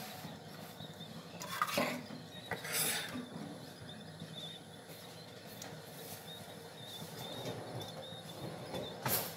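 A cloth rubbing and wiping on a wooden kitchen worktop and kitchenware, with a few short scrubbing strokes about one and a half, three and nine seconds in.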